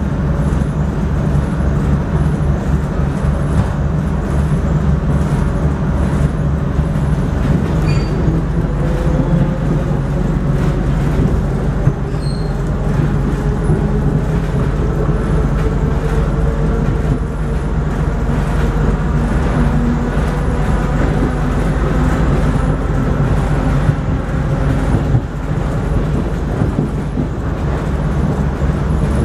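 ER2 electric train running, heard inside the passenger car: a steady rumble of wheels on rails with a low hum. From about eight seconds in, a whine slowly rises in pitch.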